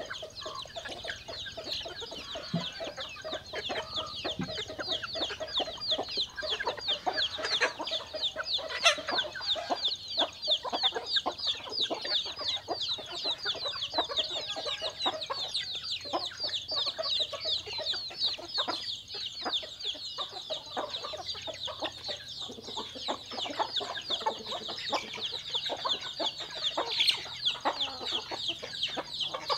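Chickens calling over one another: a dense, continuous stream of rapid high peeps, with lower clucking underneath.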